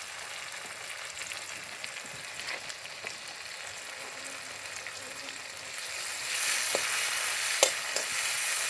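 Onion, garlic, ginger and spices frying in hot oil with chopped tomatoes just added: a steady sizzle, stirred in the pan, with a few sharp clicks of the utensil against the pan. The sizzle grows louder about six seconds in.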